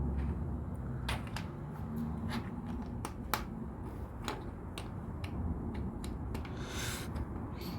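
LEGO plastic pieces clicking and tapping as they are handled and pressed together, a sharp click every second or so, over a steady low hum. A brief rustle about seven seconds in.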